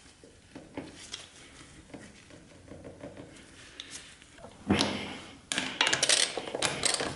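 Metal tool clatter about two-thirds of the way in, then a ratchet wrench clicking rapidly for about a second and a half as it turns the motorcycle's drive-chain adjuster bolt to set the chain tension.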